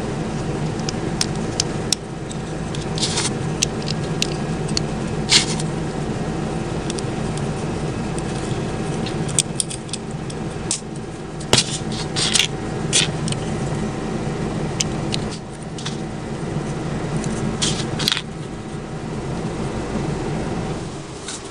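Small plastic building bricks clicked and pressed together by hand, giving scattered sharp clicks. Under them runs a steady low hum, which drops away near the end.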